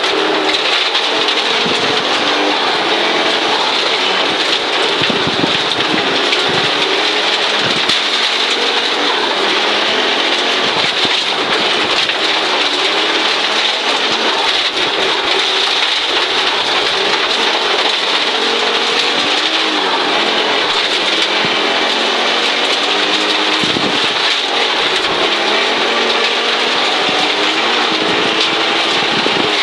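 Audi Quattro Group B's turbocharged five-cylinder engine, heard from inside the cabin, revving up and down again and again through the gears at full stage pace. A constant hiss and rattle of gravel spraying against the underbody and wheel arches runs under it.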